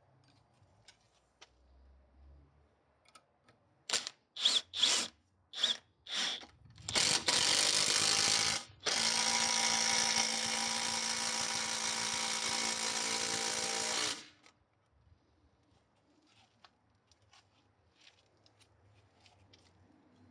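Parkside Performance PDSSAP 20 Li D3 20 V cordless impact wrench driving a large screw: about six short trigger bursts, then a steady run of about seven seconds, broken once briefly, that stops suddenly. Faint small clicks before and after.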